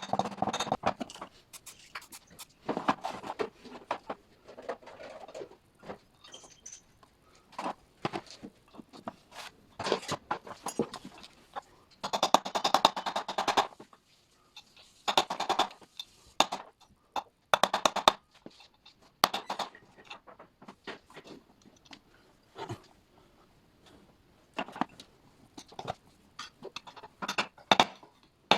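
Irregular clicks, clinks and short scrapes of metal parts and hand tools being handled while a kitchen food waste disposer's new upper shaft bearing, oil seal and retaining ring are fitted.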